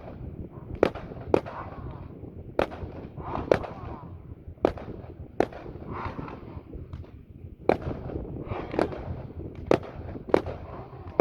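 Fireworks display: about a dozen sharp bangs of bursting aerial shells at irregular intervals, roughly one a second.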